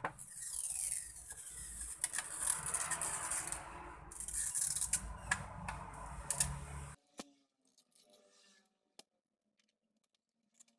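Old polarizer film being peeled off the glass of an LCD panel: a crackling, ripping sound of plastic film coming away, with small clicks. It stops suddenly about seven seconds in, leaving only a few faint clicks.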